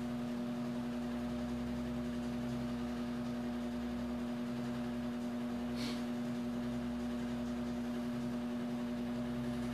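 A steady low hum, one strong tone with several fainter higher tones above it, holding level throughout. A brief soft hiss about six seconds in.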